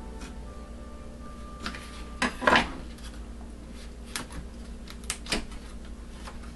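Aluminium foil pan crinkling and clicking as a knife cuts its corners on a wooden cutting board. There are a few sharp taps and one louder crinkling scrape about two and a half seconds in.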